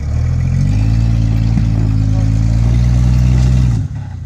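Off-road vehicle's engine revving up and holding steady at higher revs, then dropping back abruptly near the end.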